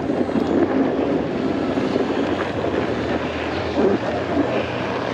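Steady rushing noise of a snowboard riding downhill: the board sliding over snow with wind on the microphone.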